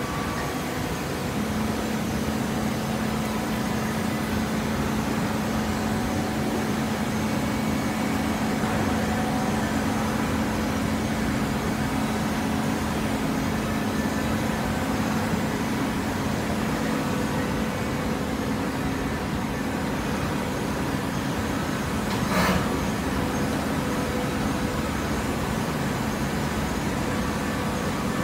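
Horizontal hydraulic baler running: a steady machine hum with a low steady tone that settles in after a second or so, and one short sharp knock late on.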